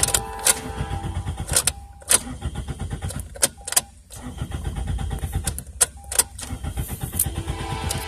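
2002 Toyota Corolla's 1.8-litre four-cylinder engine cranking on the starter without catching, in stretches with short breaks and sharp clicks now and then. It is a crank-no-start, which the owner wonders may come from a fuel pump that has quit working.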